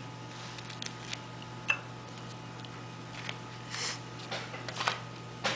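A few scattered soft clicks and brief crackles as baked choux pastry puff shells are handled and the soft dough is picked out of them, with the sharpest click a little under two seconds in. A steady low hum sits underneath.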